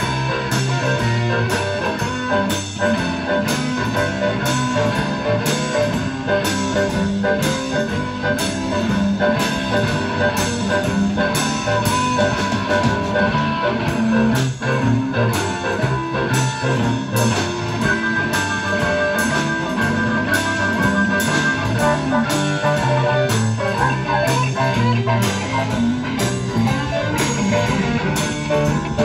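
Live rock 'n' roll band playing an instrumental passage with electric guitar over a drum kit keeping a steady beat; a long held note stands out about two-thirds of the way through.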